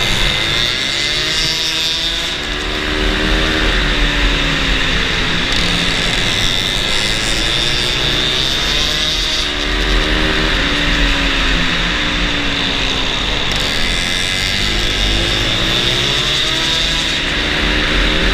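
Flat-track racing motorcycle engine heard from on board, revving up along the straights and falling off into the turns in a repeating rise and fall every few seconds.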